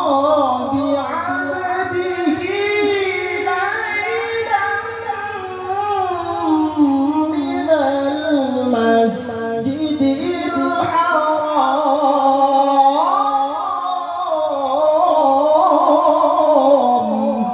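A woman's voice singing a long, ornamented melody with many gliding turns, carried over the event's amplified sound system.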